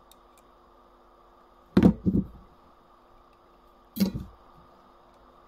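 Sharp knocks and clicks from a mechanical alarm clock's brass movement being handled and adjusted while a screw is tightened: two quick knocks about two seconds in and another near four seconds, over a faint steady hum.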